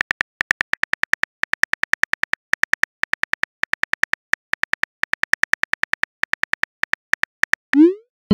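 Phone keyboard typing clicks, about seven or eight a second in runs with short pauses, as a text message is typed. Near the end a short rising swoosh as the message is sent.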